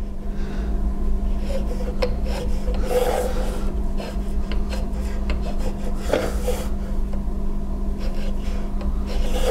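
A vernier height gauge scraping as its base slides on a metal marking table and its scriber scratches a mark on a gear. The scraping comes in a few strokes, clearest around three and six seconds in, over a steady low hum.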